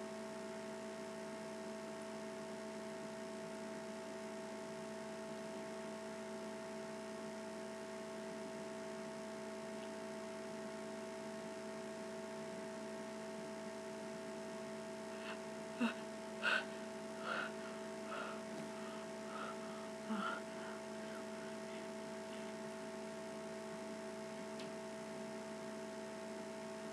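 A steady electrical hum, and near the middle a run of six or seven short gasping catches of breath, the "ah… ah…" of a sneeze building up that never comes.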